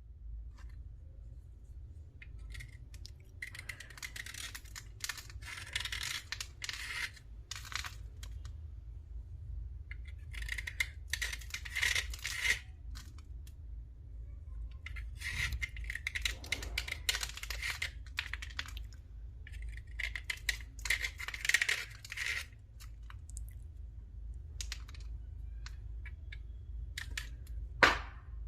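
Thick slate being scrubbed and scraped clean, in several bouts of dense scratchy rubbing a few seconds long with pauses between them. A single sharp tap near the end is the loudest sound.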